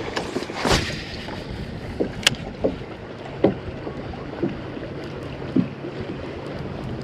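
Wind rushing over the microphone while drifting in a kayak on the water, broken by a handful of short knocks and splashes, the sharpest about two seconds in.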